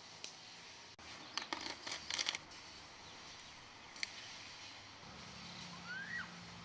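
Black umbrella's canopy rustling and crinkling as it is handled, with a cluster of quick crackly rustles about a second and a half in, the loudest part, and a single sharp click about four seconds in.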